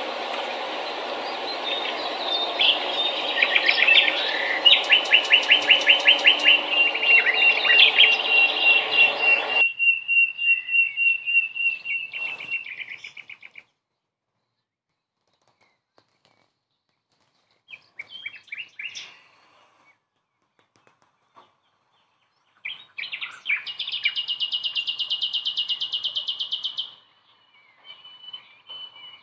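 Songbirds chirping and singing in fast, rapidly repeated trills, over a dense background hiss that cuts off abruptly about ten seconds in; after that, scattered single chirps and one more long trill near the end.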